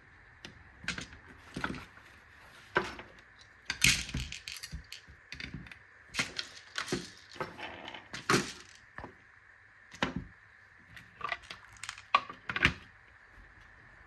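Hands working on an airsoft rifle's parts and tools: irregular clicks, knocks and light metallic clatter, the loudest a little under four seconds in and again about eight seconds in.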